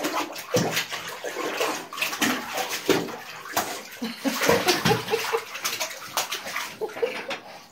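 Bathwater sloshing and splashing in a filled tub as an English bulldog puppy wades through it, in irregular splashes throughout.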